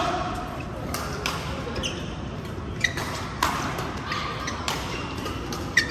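Badminton rally: sharp racket-on-shuttlecock hits in an echoing hall, the sharpest about three seconds in and just before the end, with lighter knocks between them.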